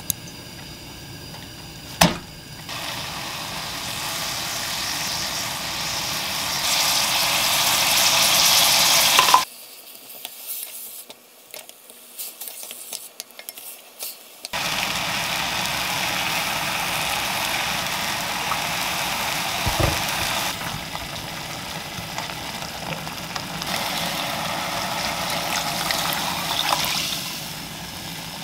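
Soaked seaweed sizzling as it is stir-fried in oil in a pot, with a spatula stirring it: the first frying step of seaweed soup before the water goes in. The sizzle breaks off for about five seconds around the ten-second mark, with a few light knocks, then resumes steadily.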